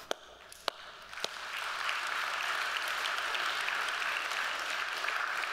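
Audience applause: a few lone claps in the first second or so, then the crowd joins in and the clapping swells and holds.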